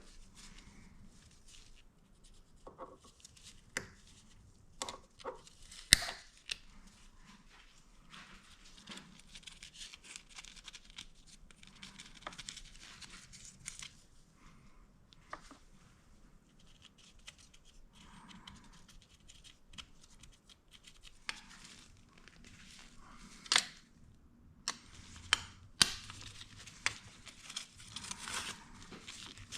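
Hands working on an engine: scattered sharp clicks and taps of tools and metal parts, with stretches of rustling. The loudest click comes about six seconds in, and several more come close together near the end.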